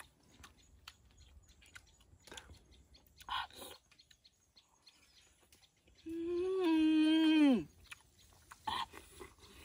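A man chewing food with faint smacking clicks, then a long drawn-out 'mmm' of enjoyment about six seconds in, its pitch holding and then falling away.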